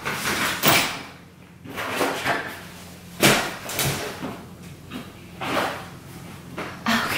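Padded nylon kit bags being lifted and stacked onto a rolling case: a string of thumps, knocks and rustles about a second apart, the sharpest knock about three seconds in.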